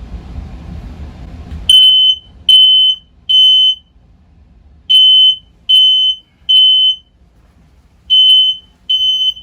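Smoke alarm sounding its temporal-three pattern: loud high-pitched beeps, each about half a second, in groups of three with a pause between groups. Before the beeping starts, a low rushing noise runs for about the first second and a half.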